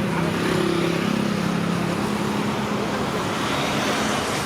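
Steady roadside traffic noise, with a vehicle engine's low hum standing out over roughly the first two seconds.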